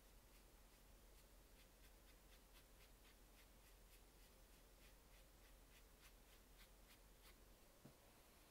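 Faint, quick strokes of a watercolour brush on textured paper, about three soft scratches a second, with a single soft knock near the end.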